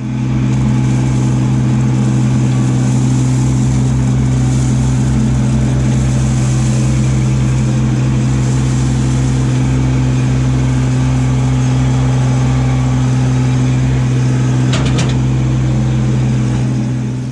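Kubota LX2610 compact tractor's three-cylinder diesel running steadily at working revs as the front-loader bucket tips out a load of gravel. There are a few sharp knocks about fifteen seconds in.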